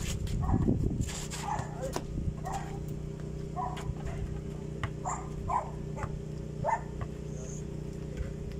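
A dog barking over and over in short barks, about one a second, over a steady low hum.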